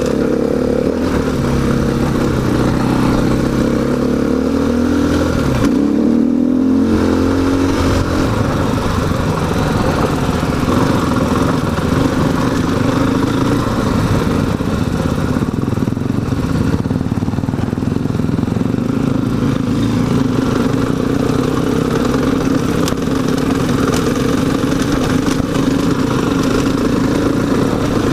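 Dirt bike engine, a KTM 500 EXC single-cylinder four-stroke, running under way while riding, its pitch shifting up and down through the first several seconds, then holding a fairly steady pace.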